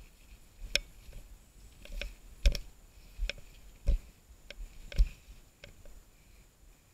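Mountain bike jolting over a rough dirt trail: a series of irregular sharp knocks and rattles from the bike and its mounted camera, over a low rumble.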